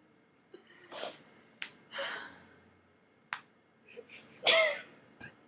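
A person's short breathy gasps and stifled laughs, the loudest a brief voiced burst near the end, with a few small sharp clicks in between.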